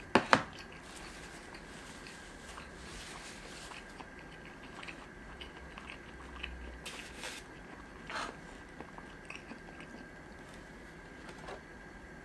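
A person eating sushi close to the microphone: chewing and biting, with small wet mouth clicks. Two sharp, loud clicks come right at the start.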